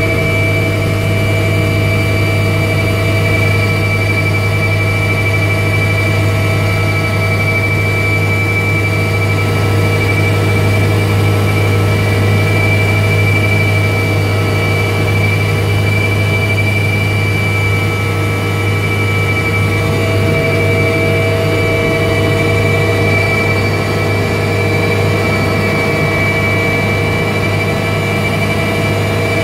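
Russian twin-turbine helicopter heard from inside the cockpit in flight on a landing approach. A steady high turbine-and-gearbox whine sits over a loud, even low rotor drone.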